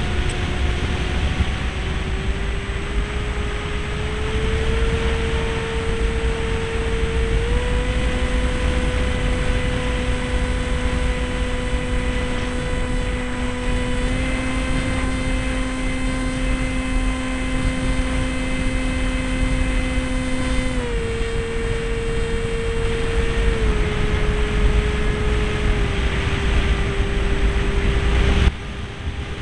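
A radio-controlled model seaplane's motor and propeller hum at a steady pitch in flight. The pitch steps up a few seconds in and steps back down about three-quarters of the way through as the throttle is changed. Heavy wind rumble on the onboard microphone drops suddenly near the end.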